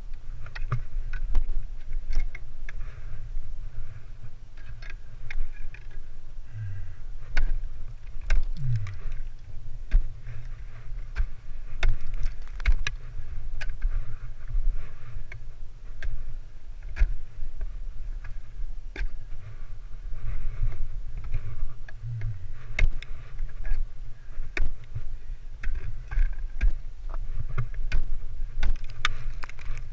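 Ice tool picks striking and biting into waterfall ice in sharp, irregular blows every second or so, over a steady low rumble.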